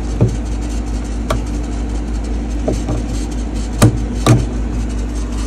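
Several short clicks and knocks as an electrical plug is handled and pushed into a wall outlet, the sharpest two close together about four seconds in, over a steady low mechanical hum.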